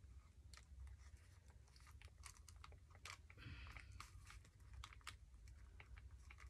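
Faint scattered clicks and soft paper rustles from hands handling paper and embellishment pieces while gluing them down.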